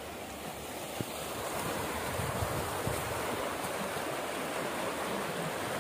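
Water gushing out of a culvert pipe into a small stream, a steady rush that grows louder over the first couple of seconds and then holds.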